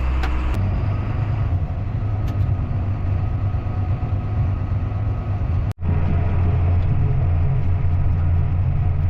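Diesel engine of heavy harvest machinery running steadily with a deep, low drone. The sound cuts out abruptly for an instant about six seconds in, then the same kind of engine drone carries on.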